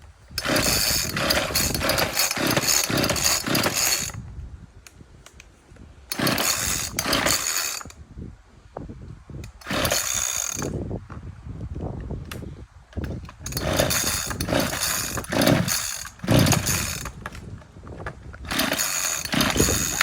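Ryobi RCS4246B two-stroke petrol chainsaw being started over and over, running in five short bursts of one to a few seconds and dying between them: it will not keep idling.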